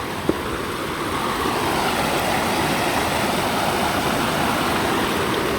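Steady rush of a rainforest creek's water running over rocks, an even wash of noise.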